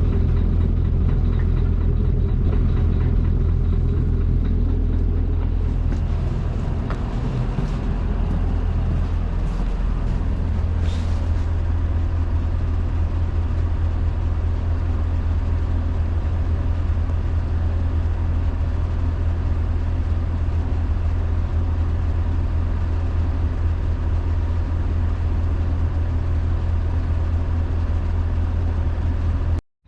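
Motor vehicle engine running steadily: a continuous low drone with road or cabin noise over it, cutting off abruptly near the end.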